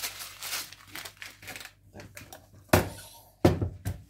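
Packet of coconut flakes crinkling as it is shaken out into a mixing bowl. It stops about two seconds in and is followed by three loud knocks as the glass bowl and kitchen scale are shifted on the countertop.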